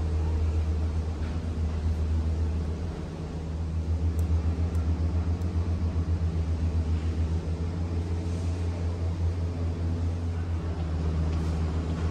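Steady low rumble of a Skyrail cableway gondola cabin gliding along its cable, fluttering rapidly in loudness, with a brief dip about three seconds in.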